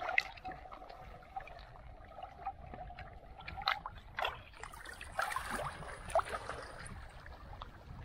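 Shallow seawater sloshing and trickling, with scattered small splashes and knocks as a metal rod probes among oyster-covered rocks underwater.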